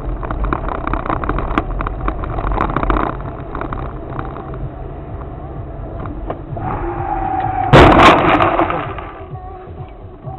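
A car driving with steady road noise, then a sudden loud vehicle collision about eight seconds in. The crash is the loudest sound and dies away over a second or so.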